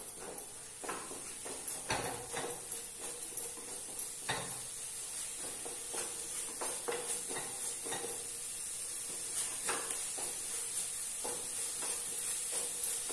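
Wooden spatula scraping and tapping against a nonstick kadhai in irregular strokes as a spiced masala paste is stirred and fried in oil, over a steady sizzle. This is the masala being sautéed in the tempering before the chicken is added.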